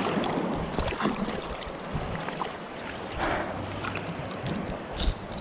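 Shallow seawater lapping and sloshing around a camera held at the surface, with a sharper splash about five seconds in.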